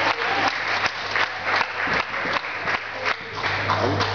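Audience applauding, many hands clapping together, with a steady low electrical hum underneath.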